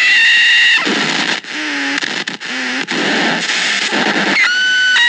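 Harsh electronic noise from Trogotronic 669 and 676 noise boxes: a loud hissing wash that cuts in and out abruptly. High steady whistling tones sound at the start and again near the end, and low warbling tones with brief dropouts fill the middle.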